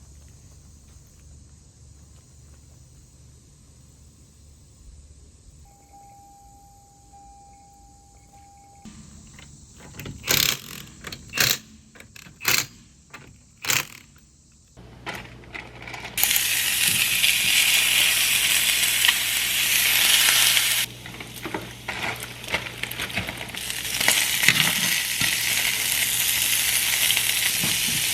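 Several sharp clicks and knocks of kitchen utensils, then food sizzling in a hot frying pan, starting a little past halfway, dipping briefly and then picking up again.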